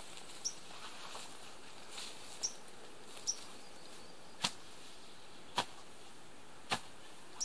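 Shovel blade striking the ground, three sharp chops about a second apart.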